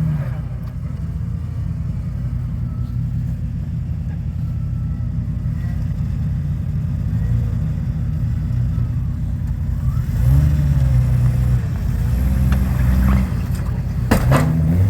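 Off-road truck engine running at low revs while crawling over rocks, revving up and down a few times in the second half.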